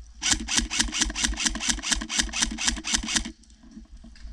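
AR-style airsoft rifle firing one sustained burst of about three seconds, about five or six shots a second, with a steady mechanical whir under the shots. The burst cuts off suddenly.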